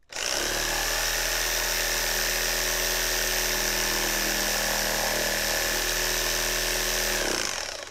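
Makita JR3050T corded reciprocating saw starting abruptly and running at a steady speed for about seven seconds, then winding down near the end.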